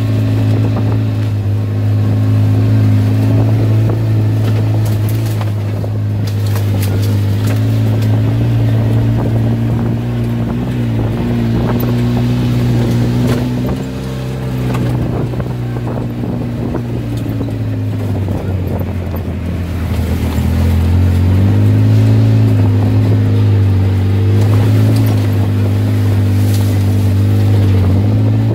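Polaris RZR side-by-side engine running at a low, steady pace on a bumpy dirt track, its pitch easing down about two-thirds of the way through and then climbing back up. Scattered knocks and rattles come from the chassis and suspension over the ruts.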